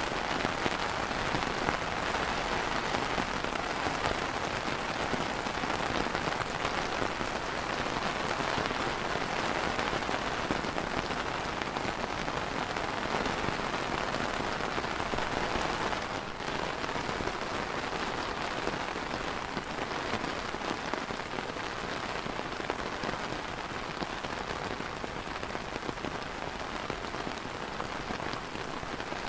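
Steady light rain falling on an umbrella, a dense even spatter of drops, a little quieter from about halfway through.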